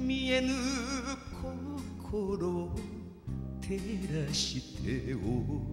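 Enka song performed live with band accompaniment: a long note with wide, wavering vibrato near the start, then a shifting melodic line over steady low backing.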